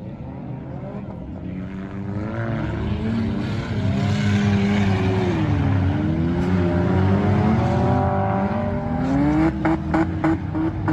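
Several demolition derby compact cars' engines revving together, rising and falling in pitch and growing louder as the cars pull off the line into the heat. Near the end the sound breaks into a rapid pulsing.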